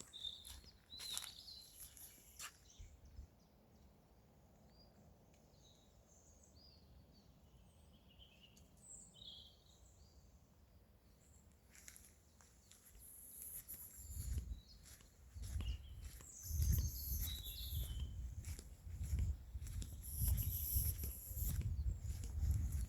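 Small birds chirping and calling now and then in the open air. From about fourteen seconds in, irregular low rumbling thuds on the microphone come in and grow louder than the birdsong.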